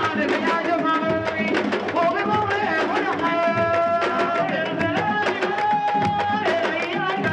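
A woman singing into a microphone, with long held and sliding notes, over steady drumming.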